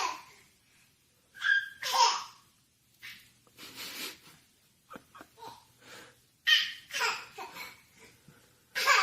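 A baby laughing and babbling in short bursts with pauses between them.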